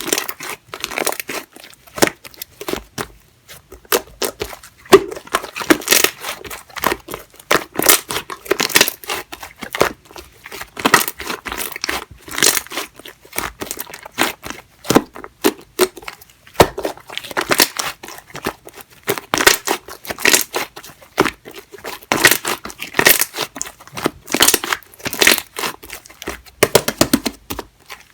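Purple clear slime with shaving foam mixed in being squished and stretched by hand: dense crackling and popping in irregular bursts, about one squeeze a second.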